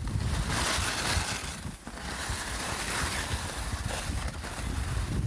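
Wind buffeting the microphone in a steady low rumble, with the hiss of skis sliding over snow on a downhill run, easing briefly about two seconds in.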